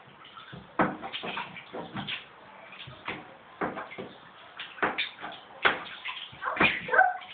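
A toddler splashing and slapping bathwater in a bathtub, with irregular sharp splashes and knocks against the tub, and a short vocal sound from the child near the end.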